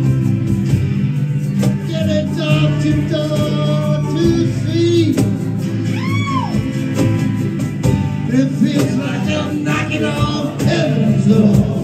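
Live band playing: strummed acoustic and electric guitars over a bass line, with voices singing.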